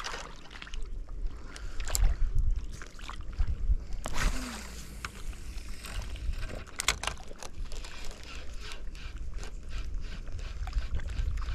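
Wind buffeting the microphone over shallow water, with scattered sharp clicks and knocks.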